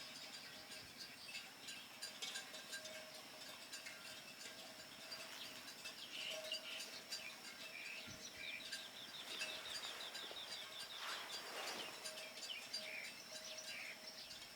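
Small birds chirping and calling over and over, with a quick descending series of notes about ten seconds in.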